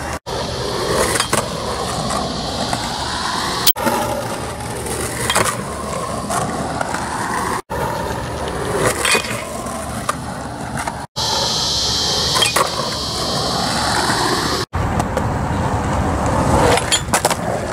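Skateboard wheels rolling over rough parking-lot asphalt, broken by sharp clacks of the board popping and landing. The sound cuts out briefly about every three to four seconds.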